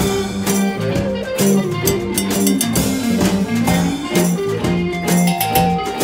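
Live folk-rock band playing: an electric guitar over a low bass line, with drum hits keeping the beat.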